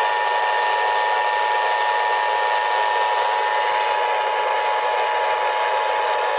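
Emergency Alert System attention signal, the steady two-tone alarm of 853 and 960 Hz, played over an FM radio receiver. A constant hiss of static sits behind it.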